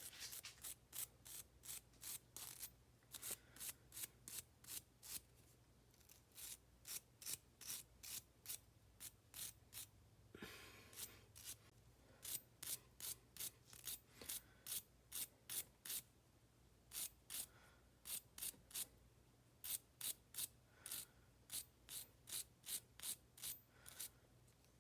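Rhythmic hand scraping or brushing strokes, quick and rasping, about two to three a second. They come in runs with short pauses, with one longer rub about ten seconds in.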